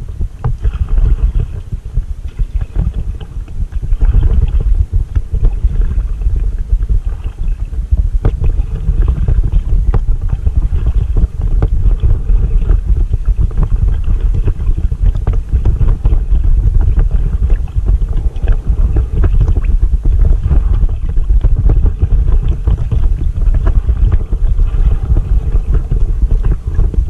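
Wind buffeting a bow-mounted camera microphone on an inflatable kayak, a loud steady low rumble, with light splashes of the paddle dipping into the lake water.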